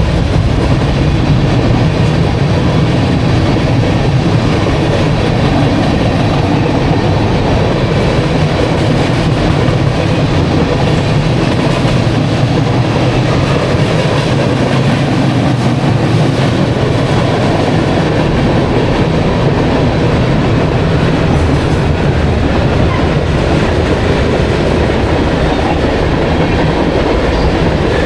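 CSX mixed freight train rolling past, a steady loud rumble of freight cars running over the rails.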